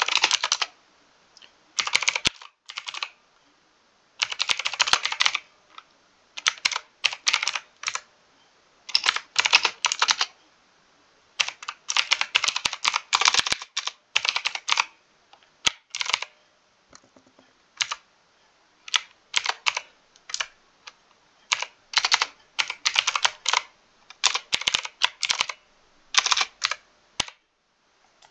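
Mechanical keyboard typing, quick flurries of key clicks separated by short pauses, as code is being entered.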